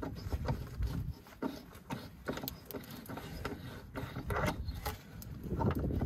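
Thread tap in a tap wrench being turned into an M12×1.5 threaded hole of a BMW E36's steel rear differential mount, chasing threads damaged in earlier fitting and removal: irregular metallic scraping and clicks.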